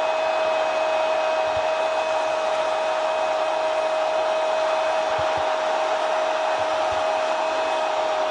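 A Spanish-language TV commentator's long, held goal cry, "¡Gooool!", on one steady note over a cheering stadium crowd.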